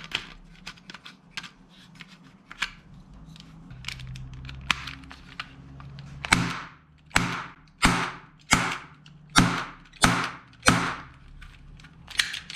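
Toy gun handled with a few light clicks, then fired seven times, about one shot every 0.7 s, each a sharp pop with a short ringing tail.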